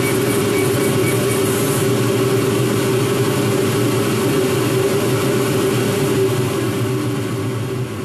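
Laser engraver's exhaust fan running with a loud, steady hum that starts to fall away near the end as the fan is switched off and spins down. A faint fast ticking from the moving laser head stops after the first couple of seconds.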